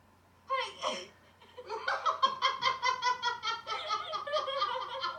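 Hearty laughter. Two short vocal outbursts come about half a second and one second in, then a long run of fast, rhythmic laughing from just under two seconds on.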